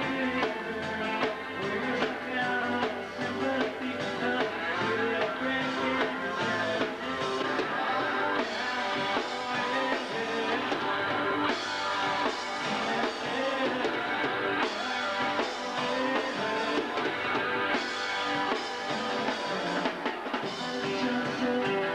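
A rock band playing live: electric guitars, bass guitar and drum kit.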